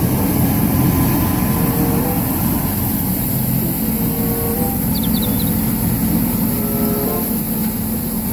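Street sweeper truck at work along the kerb: its engine running with a steady rumble, mixed with the noise of the rotating side brush and suction sweeping up litter.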